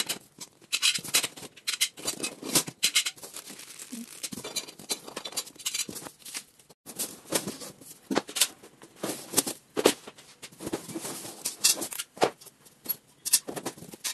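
Cardboard packaging and black slotted steel rack posts being handled and lifted out of their box: irregular rustling, scraping and light knocks.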